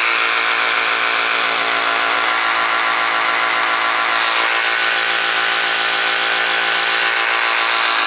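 Snap-on CTRS761 cordless reciprocating saw running at a steady speed, a continuous motor-and-drive whir.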